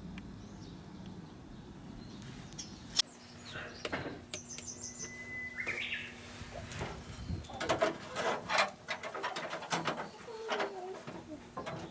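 Birds chirping with scattered sharp clicks and knocks, densest in the second half. A low steady hum stops about three seconds in.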